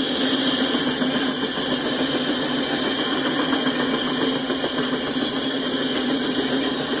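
Freight cars rolling past on the rails: a steady rumble and hiss of steel wheels on track, with no breaks or separate bangs.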